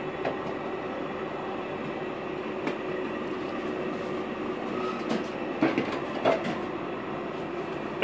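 Sheet-metal casing and parts of a window air conditioner being handled during disassembly: a few short metallic knocks and clanks, about four over the middle of the stretch, over a steady machine hum.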